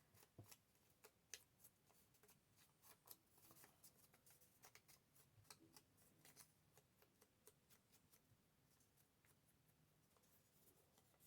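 Near silence with faint rustling of paper and scattered small clicks and taps as paper is handled.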